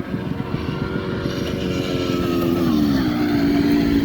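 A small vehicle engine running with a rough, rapid beat, its pitch dropping between about two and three seconds in as it slows.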